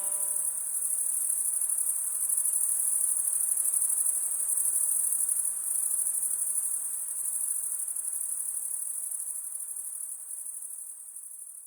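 A dense chorus of crickets trilling steadily at a high pitch, fading out at the very end. An accordion's last notes end right at the start.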